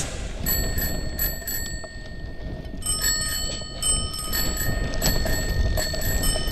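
Mountain bike's bell ringing in light, irregular strikes, shaken as the bike rolls over the rough trail, over a steady rumble of tyres and wind.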